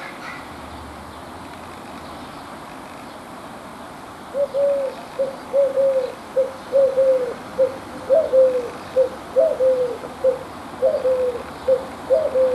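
Eurasian collared dove cooing: starting about four seconds in, its three-note coo is repeated over and over in a steady rhythm, each phrase a low, slightly falling note.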